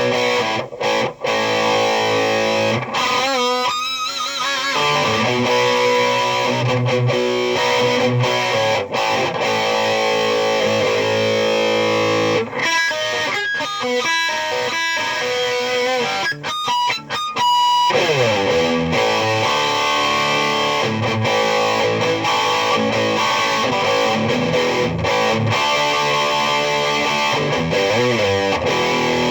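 Electric guitar played through a tube amplifier and a Peavey 5150 speaker cabinet: held notes and chords with wide vibrato in places, and a quick run of short picked notes about midway.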